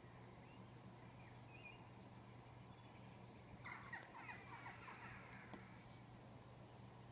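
Near silence with a faint steady hum, broken about halfway through by a brief, faint burst of rapid chirping.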